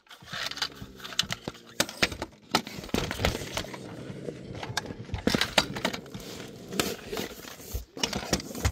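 Handling noise from a phone being moved about: rustling and crackling with scattered clicks and knocks.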